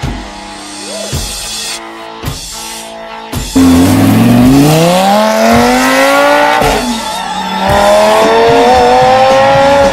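Background rock music, then about three and a half seconds in a Lamborghini Gallardo's V10 accelerating hard over it, loud: the engine note climbs, drops at an upshift about three seconds later, and climbs again through the next gear.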